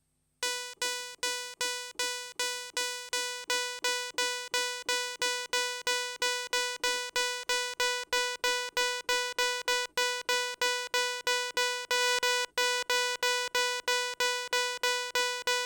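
Moog Messenger analog synthesizer playing a short plucky patch: one bright note repeated about three times a second, each with a sharp start and a quick decay.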